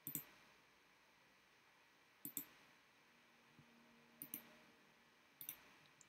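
Four faint double clicks of a computer pointing device's button, each a quick press and release, as items are picked from a program's menus.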